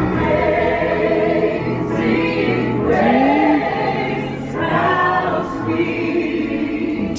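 A choir singing long, held chords in a church style, changing chord every second or two.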